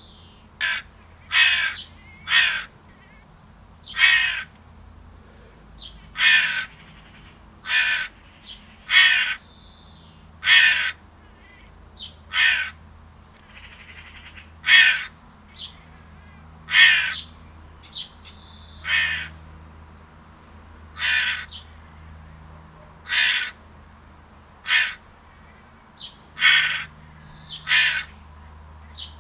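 Crow cawing repeatedly: short, harsh caws every second or two, some in quick pairs.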